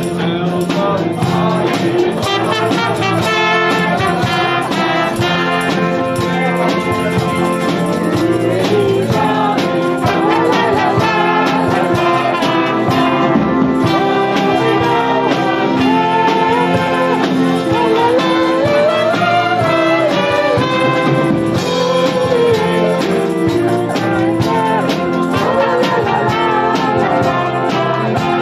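Live amateur band playing a Christmas song, a trumpet carrying the melody over acoustic guitar and drums.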